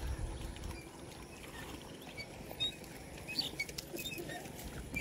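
Wet jute stalks and fibre being handled at the water's edge: light splashing with a few sharp clicks of stalks knocking together about three and a half seconds in. Small birds chirp briefly and repeatedly over a low rumble.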